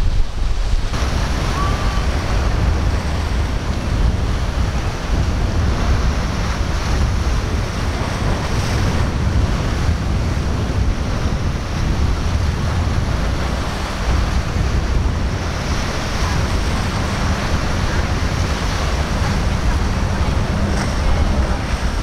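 Steady wind rumbling on the microphone over the wash of breaking waves and surf.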